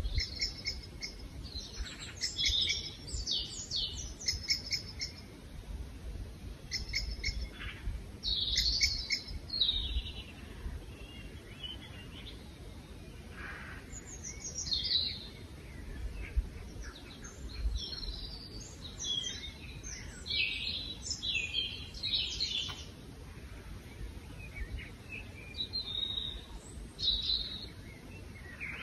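Birds chirping and singing in repeated short bursts of high chirps and trills, over a faint low rumble.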